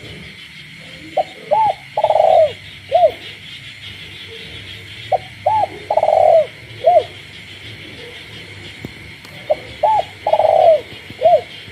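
Captive spotted dove cooing at night: three phrases of about four notes each, one phrase every four seconds or so, each with a long drawn-out note in the middle. A steady chorus of frogs sounds behind it.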